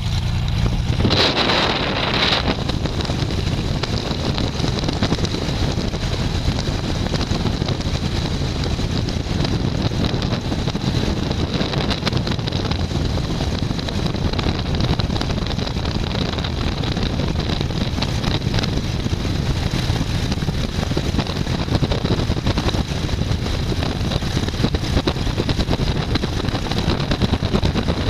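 Light high-wing airplane's engine and propeller heard from inside the cabin while it rolls along the airstrip after landing and taxis, a loud steady drone. There is a brief rush of noise about a second in.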